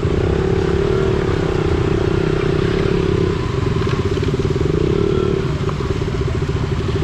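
Motorcycle engine running steadily, with an even pulsing hum.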